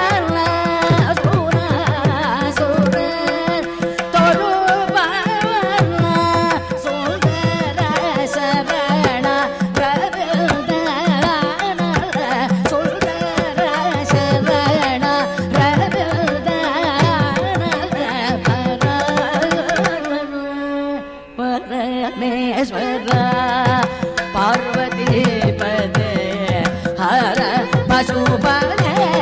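Carnatic concert music in raga Vachaspati: a melody in singing and melodic ornaments over a steady drone, with drum strokes of the mridangam. The music briefly thins out about 21 seconds in before carrying on.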